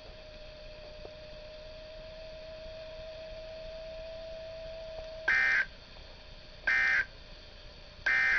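Three short bursts of digital data warble from a NOAA Weather Radio receiver, starting about five seconds in and spaced about a second and a half apart: the SAME end-of-message code, sent three times to close the broadcast test. A faint steady tone sounds before them.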